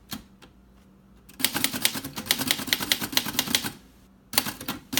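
Typing on a 1951 Erika Model 8 portable typewriter: a quick run of keystrokes, the typebars snapping against the platen about six times a second. It starts about a second and a half in, pauses briefly near four seconds, then resumes.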